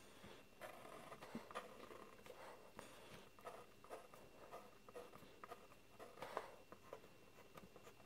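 Pencil scratching on paper in short, irregular strokes as lines are drawn, faint throughout.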